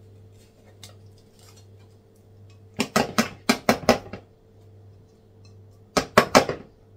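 A small metal tuna can being knocked against the rim of a plastic salad bowl to tip the tuna out: a run of about six quick sharp knocks about three seconds in, and four more near the end.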